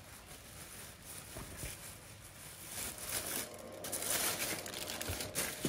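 Plastic packaging rustling and crinkling as a bagged model box is pulled from a cardboard shipping carton. It grows louder in the second half and ends with a knock.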